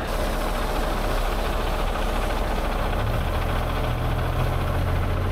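Heavy diesel engine of a Peterbilt rotator tow truck idling with a steady low clatter, its engine speed stepping up about three seconds in.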